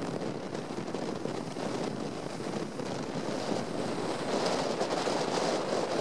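Strong wind blowing over the microphone, with waves breaking on the shore; the noise grows louder about four seconds in.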